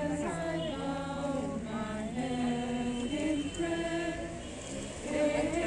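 A group of mourners singing a slow hymn together, unaccompanied, in long held notes.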